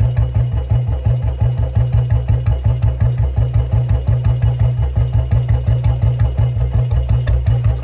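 Royal Enfield Bullet 350's single-cylinder engine running at idle with an even thump, about six beats a second. No chain noise is heard: the chain has just been oiled with engine oil and is running quietly.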